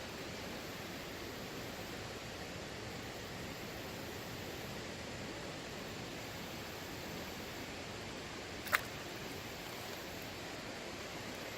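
Steady rush of flowing creek water, with one sharp click about nine seconds in.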